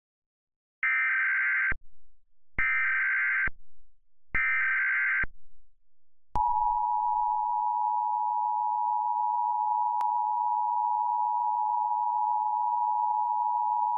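Emergency Alert System tones: three short bursts of the SAME header's warbling data tones, about a second each and a second apart. About six seconds in, the steady two-tone EAS attention signal starts and holds.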